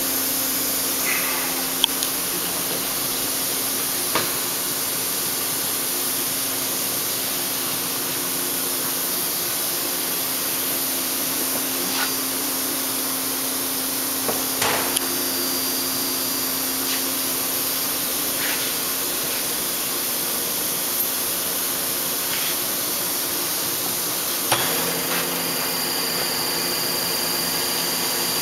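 Machine-shop background noise: a steady hiss with a low hum, broken by a handful of sharp clanks and knocks.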